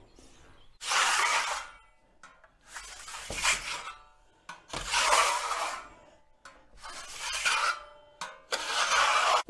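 Plastering trowel scraping and smoothing over wet plaster on a wall in five separate strokes, each about a second long.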